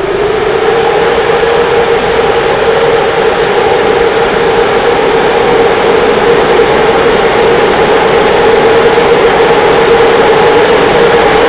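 CFR Class 45 (060-EA) electric locomotive rolling slowly in, with a steady droning hum over a wide hiss that grows a little louder as it nears.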